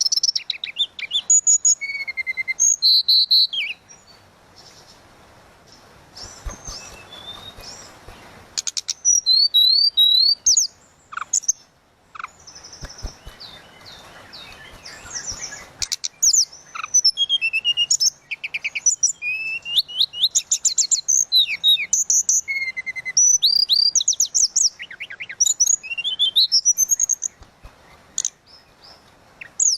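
Tledekan laut singing in full voice: fast, varied phrases of clear whistled notes, sweeps and trills. The song breaks off twice for a few seconds of quieter, scattered notes.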